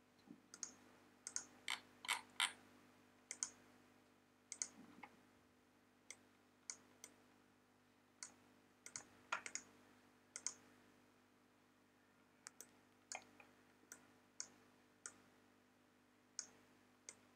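Computer mouse clicks, single and in quick pairs, scattered irregularly about once or twice a second over a faint steady hum.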